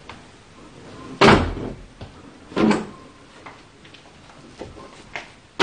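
An interior door being opened and handled: a loud knock a little over a second in, a second knock about a second and a half later, then a few small clicks.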